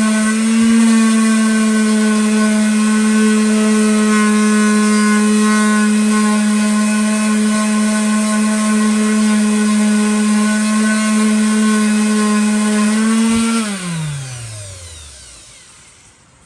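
Electric sander running at a steady pitch on an ash wood round. About 13 seconds in it is switched off and winds down with a falling whine.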